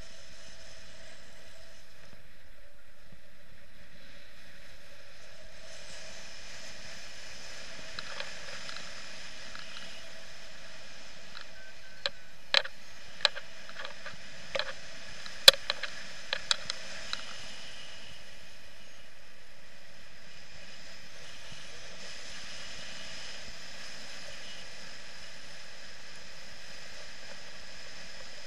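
Steady rush of airflow over a paraglider-mounted action camera in flight. Partway through comes a burst of about a dozen sharp clicks or taps over a few seconds.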